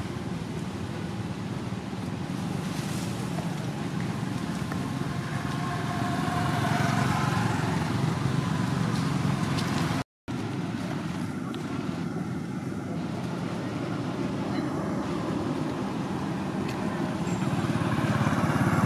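Steady low rumble of road traffic, cutting out for a moment about ten seconds in.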